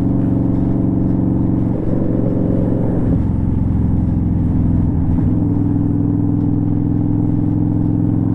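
Kawasaki Vulcan cruiser motorcycle engine running at a steady cruising speed, its pitch holding level throughout.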